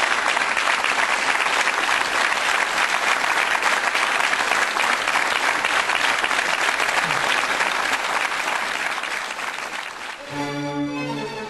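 A large audience applauding steadily and densely. About ten seconds in, the applause fades out and music starts.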